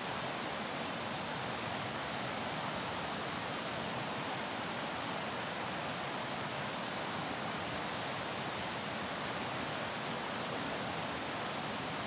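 Fast, shallow river rushing over rocks and through riffles: a steady, unbroken rush of water, more hiss than rumble.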